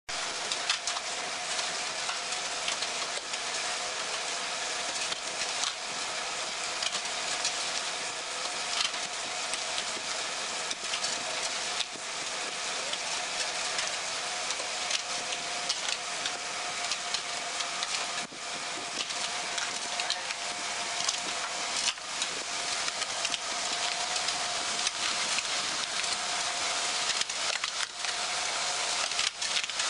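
Paving-block pan mixer running, its paddle arms scraping and churning through damp sand-and-cement mix with a steady hiss and many small clicks over a constant hum from the drive.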